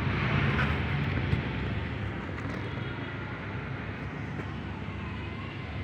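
Steady outdoor background noise: a low rumble with hiss, heavier in the first second or so, then settling to an even level.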